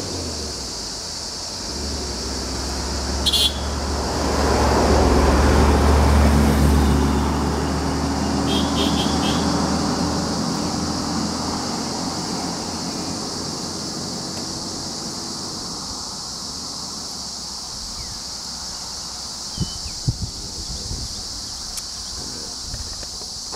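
A vehicle engine drawing near and idling close by: it swells from about two seconds in, is loudest for a few seconds, then fades away. Under it runs a steady high drone of insects, and a few short knocks come near the end.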